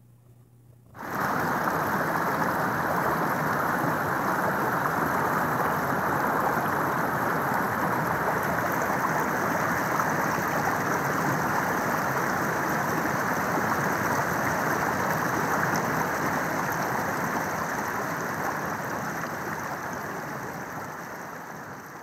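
Shallow stream water running over and between rocks: a steady rush that starts about a second in and fades slowly near the end.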